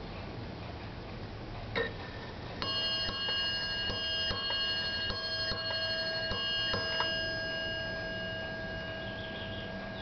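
Brass ship's bell clock with a Hermle movement striking eight bells: a mechanism click, then four pairs of bell strikes whose ringing fades slowly. Eight bells at eight o'clock marks the end of a four-hour watch.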